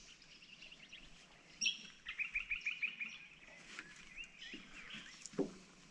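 Birds chirping and calling, including a quick run of short repeated notes about two seconds in, with a soft knock near the end.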